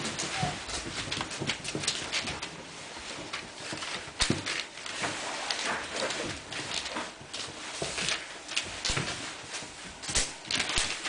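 Irish Wolfhound puppies about three and a half weeks old playing and scuffling, with irregular scratches and clicks of paws and claws.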